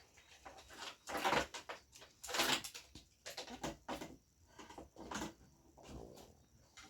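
Handling noise from working on a TV being reassembled: rustling, scraping and light knocks of parts, with two louder scrapes about one and two and a half seconds in.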